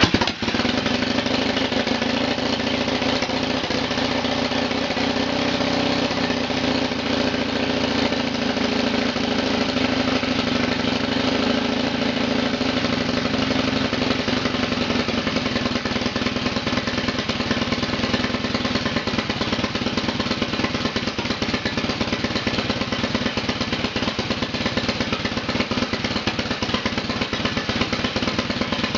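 1925 Harley-Davidson JDCB's F-head V-twin engine starting and running steadily, the first time it has run in decades.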